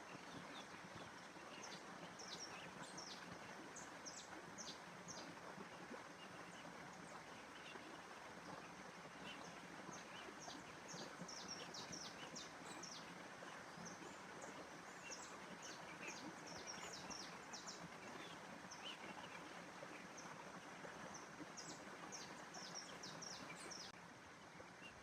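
Small birds chirping: clusters of quick, high chirps come and go several times over a faint, steady hiss of outdoor ambience.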